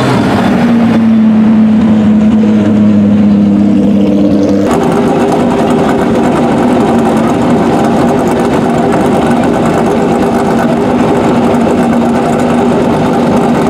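Corvette Daytona Prototype race car's V8 idling steadily, with an even, unchanging pitch; the sound changes abruptly about a third of the way in.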